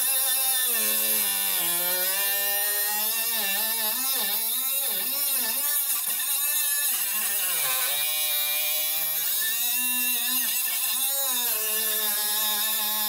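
Milwaukee M12 Fuel 3-inch cut-off tool with a metal-cutting disc grinding through a metal shear pin: the brushless motor runs under load with a hissing grind, its pitch wavering and dipping as the disc bites.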